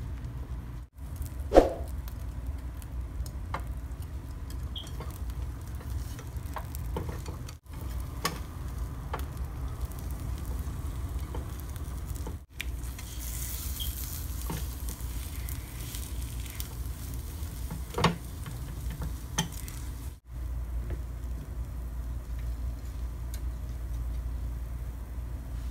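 Egg and bread frying in a pan with a steady low sizzle, and now and then a sharp click of a metal fork against the pan as the bread is lifted and turned.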